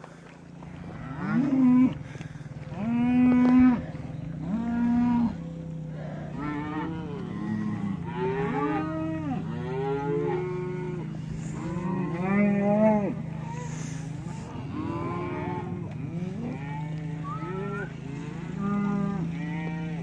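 A herd of beef cows and calves mooing over and over, the calls of different pitches often overlapping, over a steady low drone.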